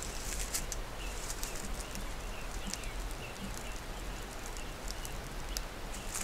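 Outdoor ambience with small birds chirping faintly now and then over a low steady rumble.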